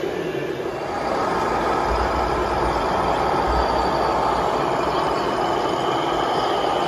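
Simulated diesel truck engine sound from a radio-controlled model Mercedes Actros tipper truck's onboard sound module, running steadily as the model truck drives off loaded; it grows louder about a second in, with a low rumble soon after.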